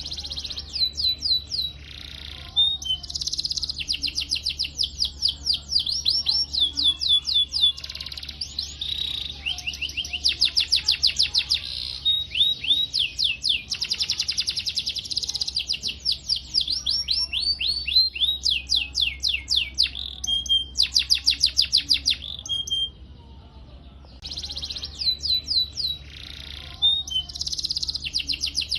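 Domestic canary singing long rolling trills of rapid, repeated high chirps, with a brief pause about three-quarters of the way through. A faint steady low hum runs underneath.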